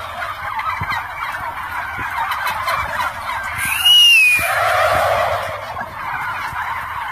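A large flock of turkeys gobbling and chattering all together in a dense, continuous din. About four seconds in, a loud high whistle-like call rises and falls over it.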